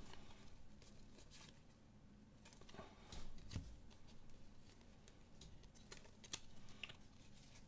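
Faint rustles and light clicks of glossy trading cards being slid and flicked one behind another in the hands, with a soft bump about three and a half seconds in.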